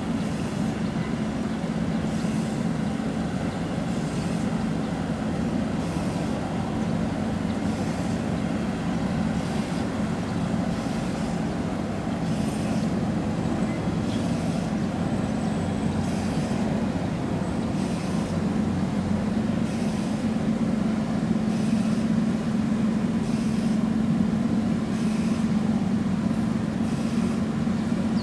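Steady low engine drone that holds an even pitch throughout, growing slightly louder in the last third.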